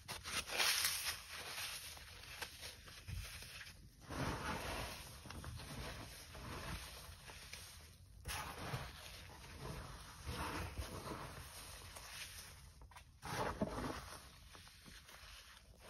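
Dry, unsoaked floral foam being crushed and crumbled by gloved hands in a heap of foam crumbs and chalk powder, giving a crunchy rustling with soft crackling. It comes in several stretches with brief breaks about every four seconds.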